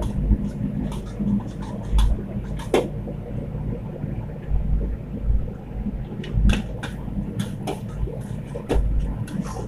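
Metal ladle clinking and scraping irregularly against a large aluminium karahi as food is stirred, over a steady low rumble.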